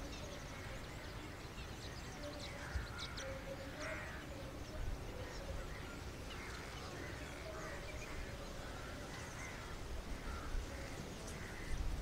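Birds calling in a marsh: a scatter of short, irregular calls and a few sharp high chirps over a faint low rumble.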